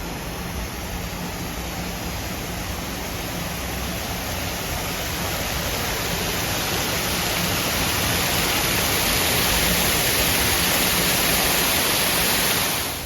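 Rushing water of the Cheonggyecheon's man-made stream and waterfall, a steady noise that grows gradually louder and then cuts off abruptly just before the end.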